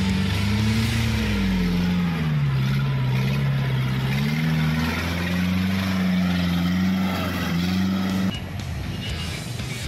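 Off-road Jeep's engine labouring as it pushes through deep mud, its pitch dipping about two seconds in and climbing back up. The sound stops abruptly near the end.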